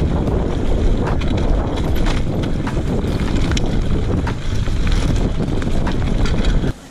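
Wind rushing over a GoPro Hero 5 Black's microphone while a Fuji Addy One.5 mountain bike rides fast down a dirt trail, tyres rumbling over the ground, with frequent sharp clicks and rattles from the bike on the rough surface. The noise drops away suddenly near the end.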